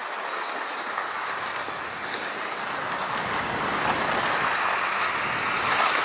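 Skis sliding over packed snow with wind rushing past the microphone, a steady hiss that grows louder as the skier picks up speed.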